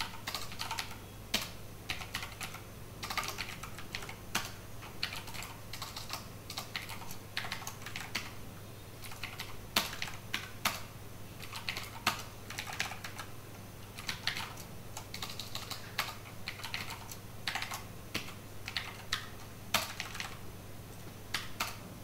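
Computer keyboard typing: irregular bursts of quick keystroke clicks with short pauses between them, over a steady low hum.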